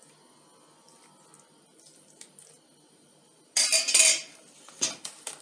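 A metal ladle knocking and scraping against a metal bowl of milk. After a quiet start there is a loud scrape about two thirds of the way in, then a few sharp clinks as the ladle settles against the bowl's rim.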